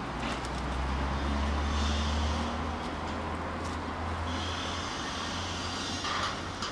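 Low engine rumble of a motor vehicle, swelling about a second in and then easing, over steady outdoor background noise. A higher hiss comes and goes twice.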